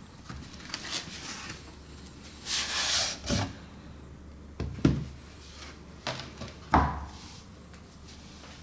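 White cardboard watch box being handled with cotton-gloved hands: a rubbing, sliding swish of cardboard about two and a half seconds in, then three soft knocks as the box is tipped and set down on the table, the last the loudest.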